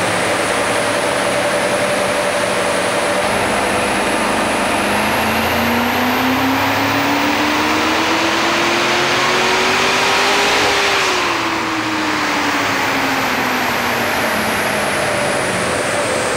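The 5.4-litre V8 of a 2009 FPV XR8 GS on a chassis dyno, making a hard full-load power run. The engine note climbs steadily in pitch from about five seconds in to a peak about ten seconds in, then falls away as the run winds down. Under it runs a loud steady rush, and a faint high whine rises and falls with the revs.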